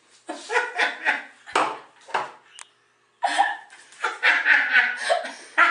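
A woman laughing in short, quick bursts, with a break of about a second near the middle before the laughter picks up again, louder.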